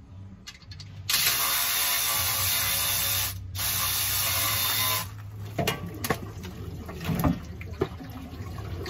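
Engine oil gushing out of a DD15 diesel's partly unbolted oil suction manifold and splattering over the frame: a loud rushing from about a second in, breaking off briefly, that stops about five seconds in, then scattered splashes and drips.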